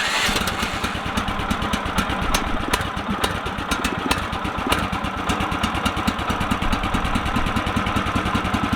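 Gasoline engine of a Woodland Mills HM130Max portable sawmill running steadily at low speed, with an even rhythmic pulse.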